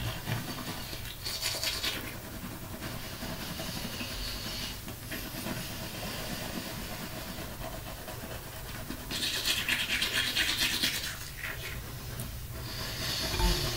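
Manual toothbrush scrubbing teeth: a wet, scratchy brushing sound that comes in stretches with short pauses, loudest about nine to eleven seconds in.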